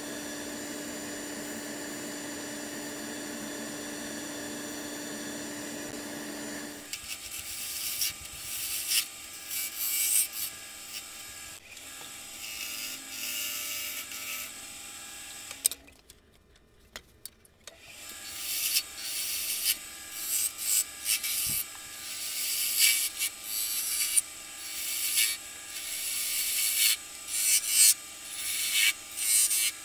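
Wood lathe running with a steady hum while sandpaper is held to the spinning blank. From about seven seconds in, a turning tool cuts the spinning wood in repeated short, hissing scrapes, broken by a brief near-silent pause just past the middle.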